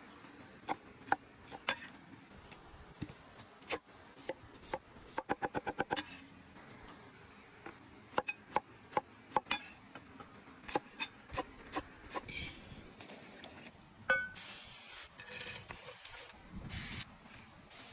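Scattered sharp knocks and clicks of hands-on cooking work, with a quick even run of about a dozen taps around five seconds in, then a stretch of hiss from about fourteen seconds in.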